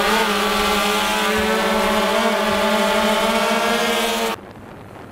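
DJI Phantom 2 quadcopter hovering: a steady hum from its propellers and motors, wavering slightly in pitch, that cuts off abruptly about four seconds in, leaving fainter noise.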